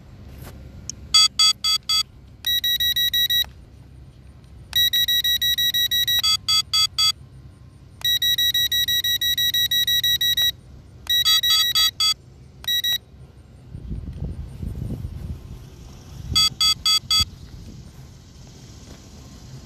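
High-pitched electronic warning beeps from the SG906 Pro drone's low-battery alarm. Strings of short rapid beeps alternate with longer held tones, repeating in a pattern. A low rumbling noise comes in about two-thirds of the way through.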